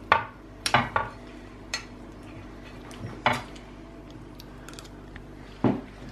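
Metal spoon and fork clinking and scraping against a ceramic bowl, about half a dozen separate sharp clinks at irregular intervals.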